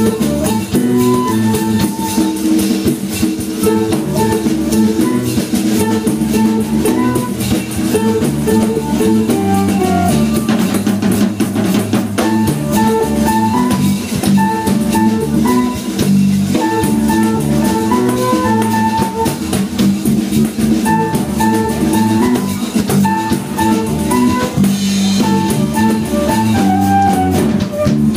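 Live instrumental band playing a baião, with a drum kit and percussion keeping the rhythm under a busy electric bass line and keyboard.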